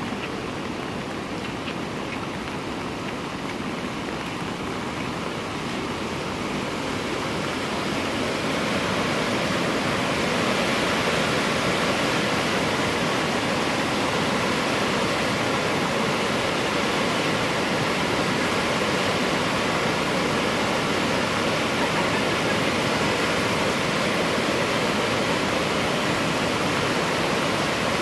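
Swollen, flooding creek rushing past in a steady wash of water noise, mixed with falling rain. It grows louder about eight to ten seconds in.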